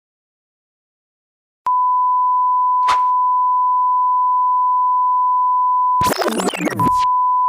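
Electronic sine-wave beep, a single steady pure tone like a censor bleep, starting about one and a half seconds in and held for several seconds with one short knock partway through. Near the end a brief noisy sound effect with sweeping pitches cuts across it, and then the beep comes back.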